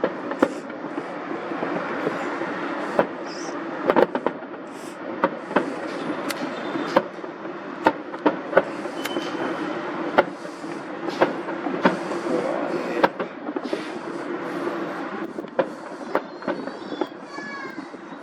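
Fireworks display going off: irregular sharp bangs and cracks, roughly one a second, over a steady background of crowd noise, with a short warbling whistle near the end.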